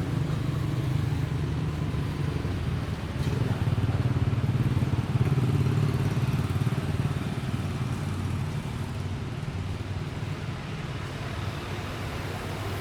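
An engine running steadily with a low rumble, growing louder a few seconds in and then easing off a little.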